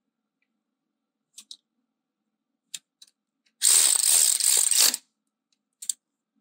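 Hand socket ratchet clicking rapidly for about a second and a half as it runs in a brake caliper bolt, with a few single tool clicks before and after.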